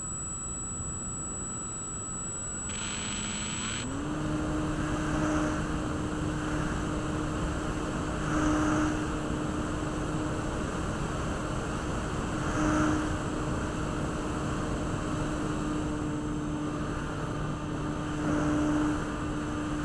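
RC Glasair Sportsman model plane's motor and propeller running in flight, heard from a camera strapped under the fuselage, over a rush of wind. The pitch steps up about four seconds in and then holds steady, with a few brief swells in loudness.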